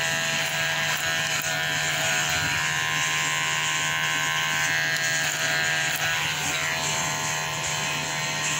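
Electric hair clippers buzzing steadily as they cut hair.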